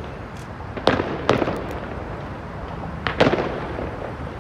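Fireworks bursting: two pairs of sharp bangs, one pair about a second in and another about three seconds in, each trailing off in a rolling echo.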